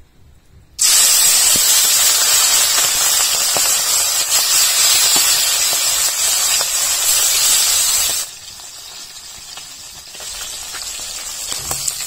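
Marinated bami fish (spiny eel) pieces frying in hot mustard oil in a kadhai: a loud sizzle starts abruptly about a second in as the fish goes into the oil. It eases off a little after eight seconds and builds again near the end.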